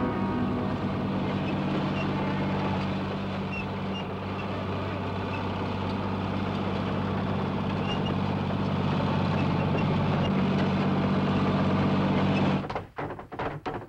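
Crawler bulldozer's engine running steadily as the machine drives along, getting a little louder near the end, then cutting off sharply about a second before the end.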